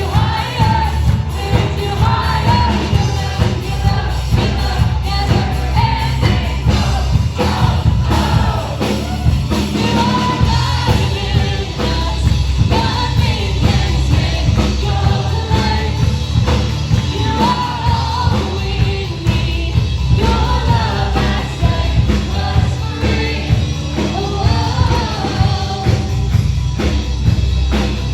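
Music with singing over a steady drum beat: a rock-style song.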